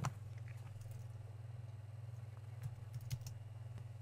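A few scattered computer keyboard keystrokes and clicks: one at the start and a short cluster about three seconds in, over a steady low electrical hum.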